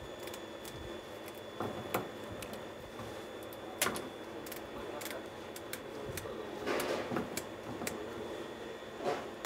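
Kitchen scissors snipping through the fins of a kasago (scorpionfish): scattered crisp snips and clicks of the blades, the sharpest about four seconds in and a short cluster around seven seconds. The hard, spiny fins are being cut off before the fish is scaled.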